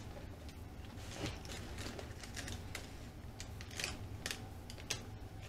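Cardboard pizza boxes being handled and held up, giving irregular light clicks and taps over a low steady hum.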